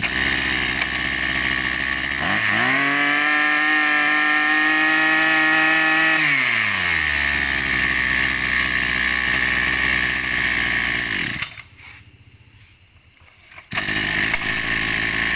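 Brush cutter engine pull-started and idling. About two seconds in it revs up, holds high for about four seconds, then drops back to idle. It cuts out, and after about two seconds of quiet it is started again with a pull and settles back to idle.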